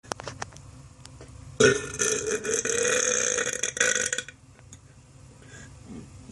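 A man's long, loud burp, produced on command, starting about a second and a half in and held at a steady pitch for about two and a half seconds, after a few small clicks.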